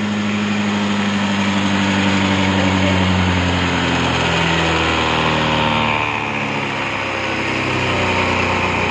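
Honda Dio scooter's 110 cc single-cylinder four-stroke engine running at a fast idle. About four seconds in, its speed drops as the carburetor's idle screw is backed out, then it settles to a lower, slightly uneven idle.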